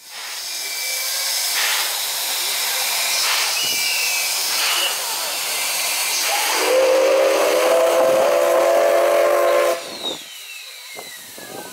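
JNR Class C11 steam tank locomotive venting steam with a loud, steady hiss. About two-thirds of the way in it sounds its steam whistle: one steady, low, multi-note blast of about three seconds that cuts off suddenly.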